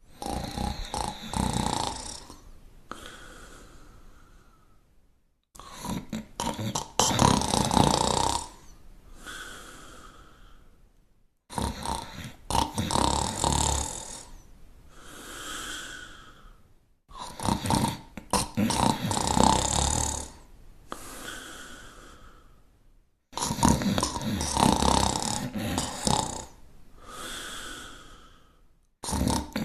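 Snoring in a very regular cycle about every six seconds. Each cycle is a loud, rattling snore of a couple of seconds followed by a softer, whistling breath and a brief silence. Five cycles are heard, and a sixth begins near the end.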